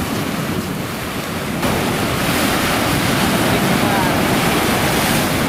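Surf breaking against a rocky shore, with wind rushing over the microphone. A continuous wash of noise that gets a little louder about a second and a half in.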